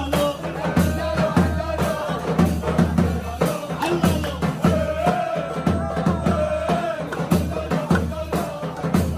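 Levantine dabke dance music: a steady heavy drum beat with a held, wavering melody line over it, and a hand-held frame drum jingling along.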